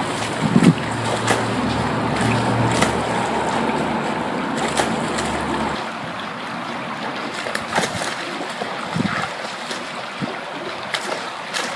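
Steady rush of icy river water with scattered sharp splashes and knocks, over a low rumble that stops about six seconds in.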